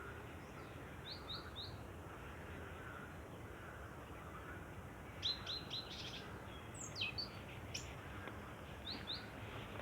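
Small birds chirping: short high chirps in quick runs of two to four, with a busier run about five seconds in and one downward-sweeping call about seven seconds in, over faint steady background noise.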